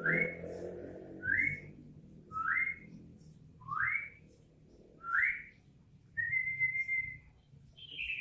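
Sooty-headed bulbul (kutilang) whistling: five short upward-slurred notes at an even pace of about one every 1.3 seconds, then one longer steady whistle.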